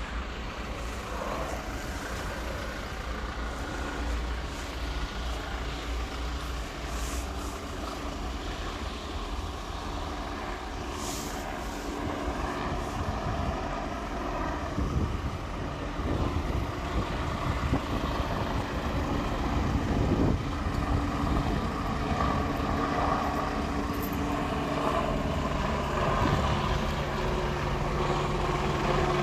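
Engine of a self-loading concrete mixer running, growing louder over the second half.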